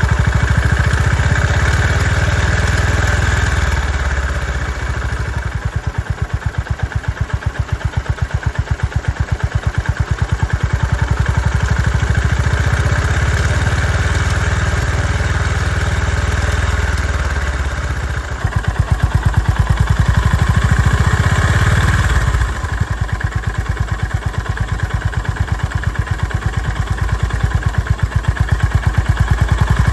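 Honda GB350's air-cooled single-cylinder engine idling with an even pulse. About 18 seconds in the recording changes to a second take, comparing the engine with its abnormal noise and after the repair.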